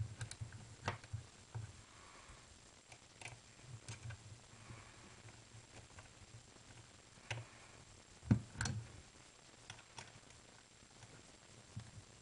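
Scattered small clicks and taps of a screwdriver and hands working on a paintball marker's grip frame as its screws are driven back in, with a louder knock about eight seconds in.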